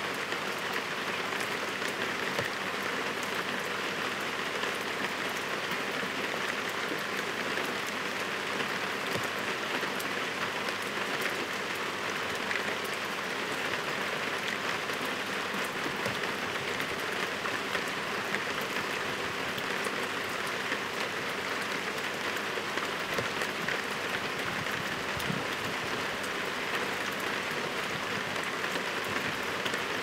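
Heavy rain falling steadily, an even rush made of many fine drop impacts.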